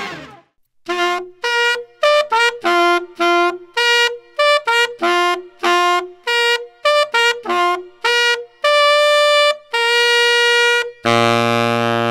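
Tenor saxophone playing a bugle call on overtones alone, with the low C fingering held throughout. Short tongued notes jump between the fifth, the octave and the major third of the low C, then come two longer notes, and about eleven seconds in the low C fundamental is held.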